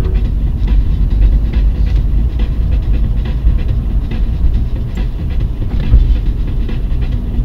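Low, steady rumble of a car's engine and tyres on the road heard from inside the cabin through a dash cam's built-in microphone, with faint knocks and rattles scattered through it.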